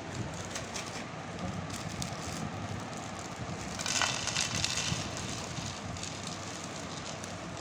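A plastic snack packet crinkling as it is torn open, loudest for about a second halfway through, then fried snack mix with peanuts spilling out onto a disposable plate. Steady background noise runs underneath.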